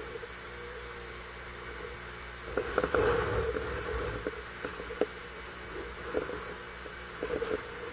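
Hurricane-force wind rushing and buffeting the microphone, with a stronger gust about two and a half seconds in and scattered knocks through it.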